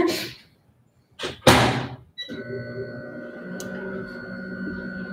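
A microwave oven door shuts with a thunk about a second and a half in, then the microwave starts and runs with a steady hum and whine, melting butter.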